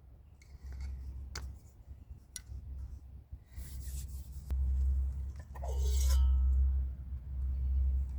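A few light clicks and a short scraping rub of small objects being handled, over a steady low rumble.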